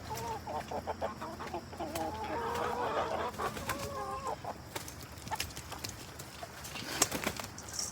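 A flock of chickens clucking excitedly over thrown vegetable scraps, a dense run of short calls for about the first four seconds, then a few scattered sharp taps.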